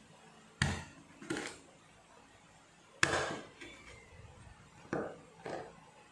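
Large kitchen knife chopping the claws off chicken feet on a wooden cutting board: five sharp knocks of the blade striking the board, unevenly spaced.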